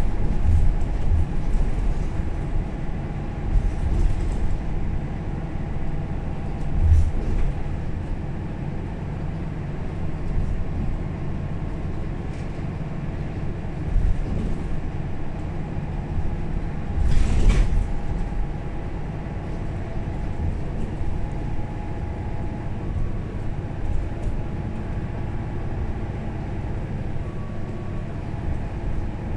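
Interior sound of a Mercedes-Benz O530 Citaro facelift city bus in service: a steady low engine and road rumble with a faint whine over it. A few knocks come through, and a short louder noise about 17 seconds in.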